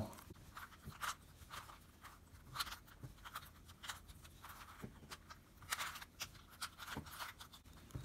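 Faint clicks and scrapes of a plastic 3x3 Rubik's Cube's layers being turned by hand, in a series of quick, irregular turns.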